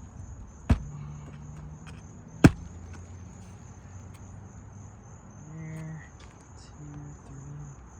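Two hammer blows on roofing nails being driven through asphalt shingles, about two seconds apart, over the steady chirring of crickets.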